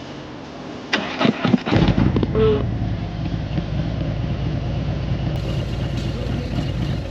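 Motorcycle engine being started: about a second of starter cranking with sharp clicks, then the engine catches and settles into a steady idle.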